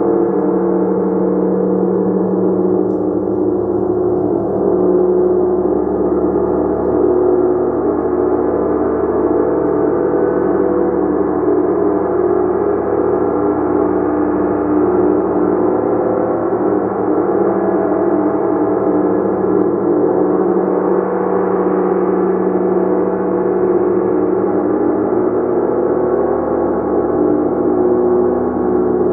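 Gong played continuously as a sustained wash: many overlapping ringing tones held at a steady level, with no single strike standing out.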